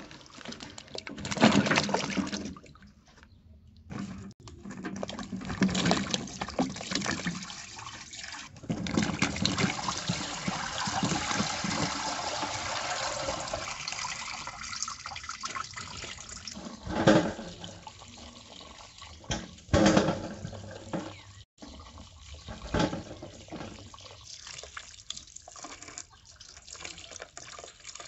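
Running water and splashing, broken into several short stretches that start and stop abruptly.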